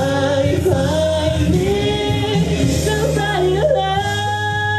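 A young woman singing a slow song live into a microphone over an accompaniment of held chords, heard through a PA system; the chord changes about four seconds in.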